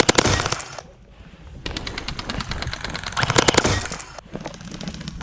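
Gel blasters firing in rapid full-auto bursts: a short burst at the start, then a longer one of about two and a half seconds from nearly two seconds in.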